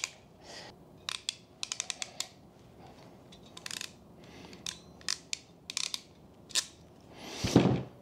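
Ratcheting wire crimper clicking in short quick runs as it closes fork terminals onto 12-gauge wire ends, with single clicks between, and a louder, longer sound near the end.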